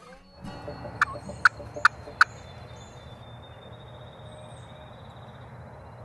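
Four short, sharp turkey calls in quick succession about a second in. Behind them run faint songbird chirps and a steady high thin whine.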